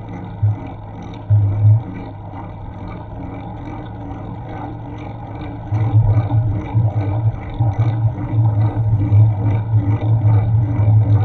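Wind buffeting the microphone of an action camera on a moving bicycle: a low rumble that comes in bursts at first, then turns louder and near-constant from about halfway through, over the hiss of street traffic.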